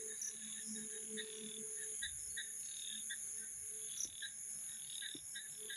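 Night chorus of crickets and other insects: a steady high-pitched trill underneath short chirps repeating about twice a second, with a lower call coming and going.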